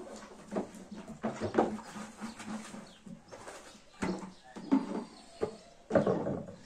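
Animal calls, a few short irregular cries, the loudest near the end.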